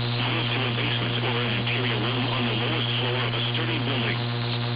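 A steady low electrical hum, with an indistinct voice rising and falling in pitch beneath it.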